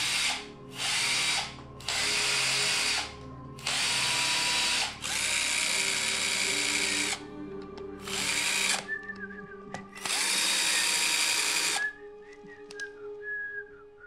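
Cordless power drill run in about seven short bursts of one to two seconds each, its motor spinning up at the start of each burst and winding down at the end.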